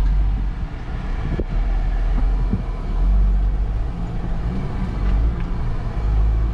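Jeep engine running at low revs with a steady low rumble from the engine and drivetrain, heard inside the cabin as it crawls along a rocky off-road trail.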